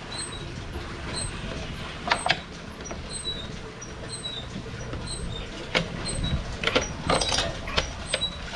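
Scissors cutting through a thin clear plastic bottle: sharp snips and crackles of the plastic, a pair about two seconds in and a quicker cluster in the second half.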